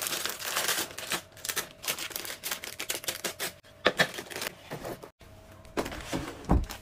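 Plastic snack wrappers crinkling and rustling in quick clicks as packets are packed into a plastic bin, then a sharp clack about four seconds in as a bamboo lid is set on it. A few low knocks of lids on storage canisters near the end.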